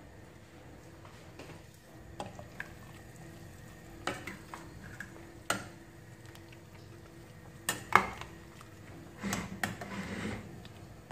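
A utensil clinking and scraping against a stainless steel pot while stirring chicken in sauce. There are scattered sharp knocks, the loudest about eight seconds in, and a short run of stirring noise near the end.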